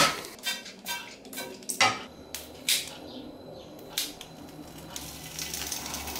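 Plastic packaging crinkling in the first couple of seconds, then kitchen scissors snipping raw chicken breast, with pieces dropping into a hot frying pan and starting to sizzle, a hiss that builds near the end.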